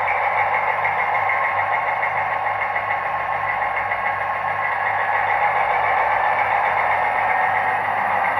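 Zimo MX645P22 sound decoder in a PIKO SU45 model diesel locomotive playing the recorded diesel engine of a real SU45, running steadily. It comes through the model's small speaker, so it sounds thin, with little low end.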